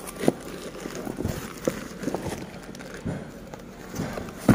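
Hands handling cardboard parts boxes wrapped in plastic: scattered light knocks and rustles, with a sharper knock near the end.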